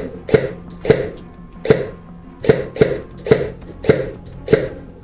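Airsoft rifle firing single shots, about nine in five seconds at an uneven pace, each a short sharp report.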